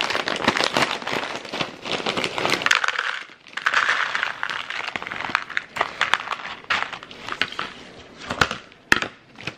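Frozen corn kernels rattling out of a plastic bag into black plastic meal-prep containers, the bag crinkling, in three spurts of pouring. A single sharp knock comes just before the end.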